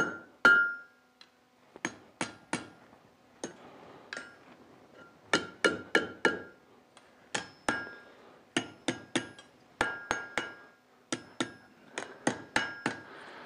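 Hand hammer striking a thin steel rod on an anvil, forging a curl into a hook end. The blows come in quick groups of two to four with short pauses between, and each one rings briefly.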